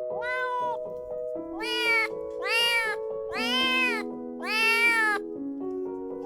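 Kitten meowing over and over, about six short high meows, each rising then falling in pitch, over background music with held notes.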